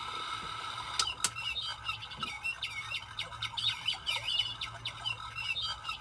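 Star projector night light's small speaker playing recorded birdsong: many short chirps from about two seconds in, after two sharp clicks of its buttons about a second in.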